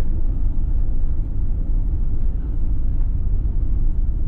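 Loud, steady low rumble with a ragged, buffeting texture.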